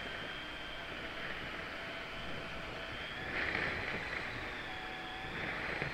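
RC scale rock crawler's electric motor and gear train whining, the pitch drifting up and down with throttle, over a steady hiss. A louder rush of noise comes about three seconds in and again near the end.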